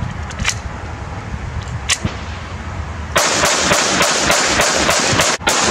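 A Glock 44 .22 LR pistol fired in a quick string of shots, about four a second, starting a little past halfway through; a couple of faint sharp cracks come before the string.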